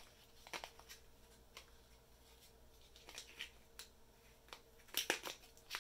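Light handling noise of small plastic model-kit parts: scattered faint clicks and rustles, with a short cluster of louder clicks about five seconds in, over a faint steady hum.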